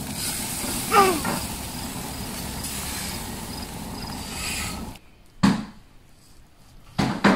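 Crickets chirping steadily in the evening air, with one short sliding call about a second in. After a sudden cut to a quiet room, a kitchen knife knocks onto a wooden cutting board as it slices through grilled squid, once and then again near the end.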